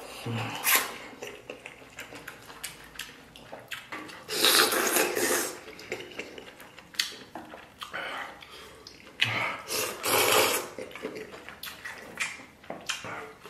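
A person slurping noodles: several noisy slurps, the longest about four and nine seconds in, with chewing and light clicks of chopsticks on a steel pot in between.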